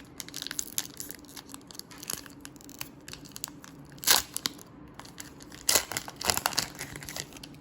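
Upper Deck Extended Series hockey card pack being torn open: the wrapper crinkles and crackles throughout, with one sharp rip about four seconds in and a few more louder rips near the end.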